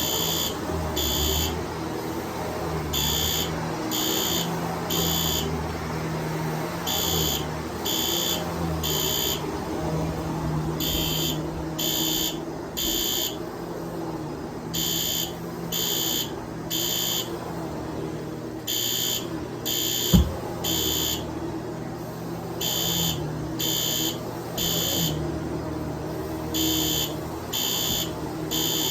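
System Sensor SpectrAlert Advance P2R horn strobe sounding its code-3 temporal evacuation pattern: three half-second horn blasts, then a pause, repeating about every four seconds. Beneath it a Shark DuoClean upright vacuum runs steadily, with a single thump about two-thirds of the way through.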